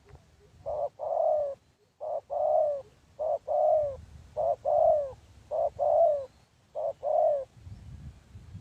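Spotted dove cooing: six two-part coos in a row, each a short note followed by a longer one that falls away at the end, about one a second, then stopping near the end.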